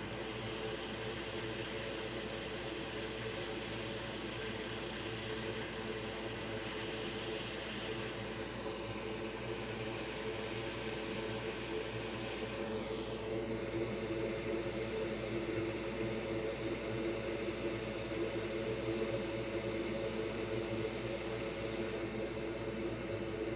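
Steady whir of a small electric blower at a soldering bench: a humming motor under an airy hiss, the hiss shifting in tone about eight seconds in and again about twelve seconds in.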